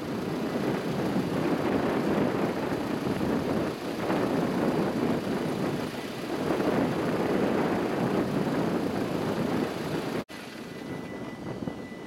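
The NS 20 'Kameel' railcar running as it approaches, mixed with wind buffeting the microphone in swells. The sound cuts off sharply about ten seconds in, then picks up again quieter, with a faint steady high tone.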